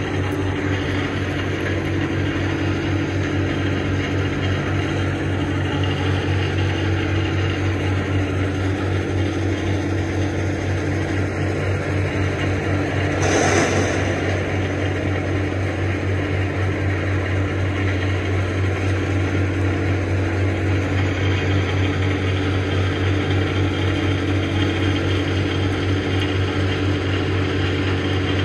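Steady low mechanical drone of a running engine or heavy machinery, a constant hum with overtones. About halfway through, a brief louder rushing sound rises over it.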